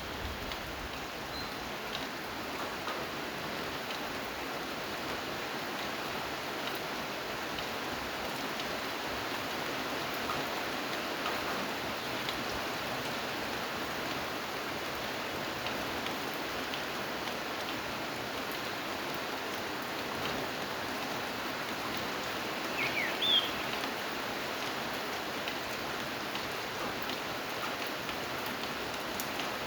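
Steady rain falling: an even hiss with scattered drop ticks. A brief high chirp sounds about two-thirds of the way through.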